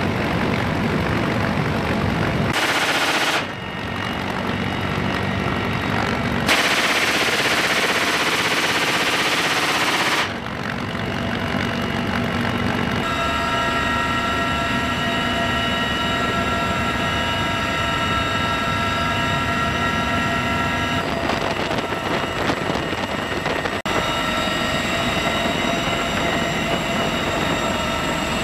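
Steady noise of a CH-53E Super Stallion helicopter heard from inside the cabin in flight, its character jumping abruptly at several cuts. A steady high whine sits on top of the noise for several seconds in the middle.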